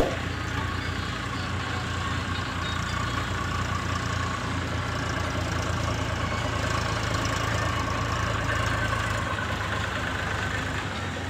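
Heavy diesel machinery on an earthworks site, an excavator and a dump truck, running steadily: a low engine hum with a higher whine above it, growing a little louder toward the middle. A single sharp knock right at the start.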